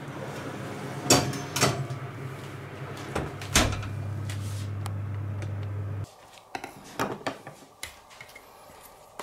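Oven door and kitchen handling: a few sharp knocks and clacks, the loudest about three and a half seconds in, over a steady low hum that cuts off suddenly about six seconds in, then a few lighter clicks.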